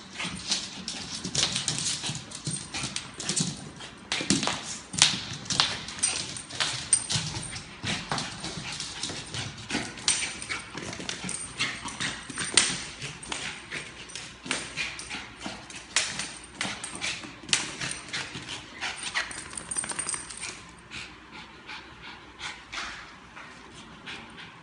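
Quick, irregular clicks and taps of a small dog's claws and a small ball on a hard tiled floor as the dog plays with the ball, thinning out near the end.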